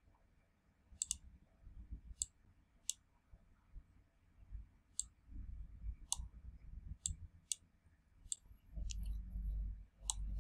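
Computer mouse button clicking about ten times at an uneven pace as points of a curve are set in a drawing program, with faint low rumbles in between.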